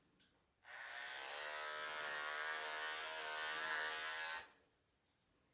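Wahl electric pet clippers buzzing steadily for about four seconds, then switched off, clipping a mat out of a Persian cat's long coat.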